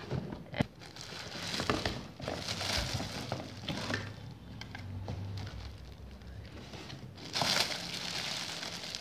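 Clear plastic wrapping crinkling and rustling against a cardboard box as plastic-bagged steamer parts are pulled out and handled, with a few small clicks in the first couple of seconds and a louder burst of crinkling about seven seconds in.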